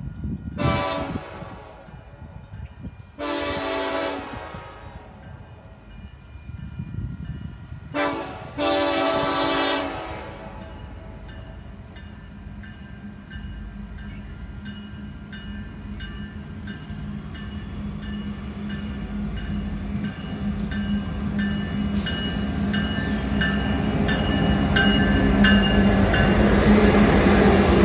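Union Pacific diesel locomotive horn sounding four blasts, the third one short and the last one long, in the pattern of a grade-crossing signal. After that the locomotives' diesel engines and the rumbling train grow steadily louder as the train approaches and passes close by.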